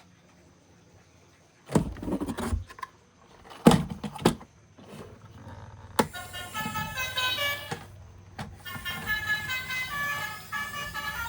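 A few sudden knocks and rattles of a plastic toy being handled, then a battery-powered toy vehicle's sound chip playing electronic horn tones and a stepping tune.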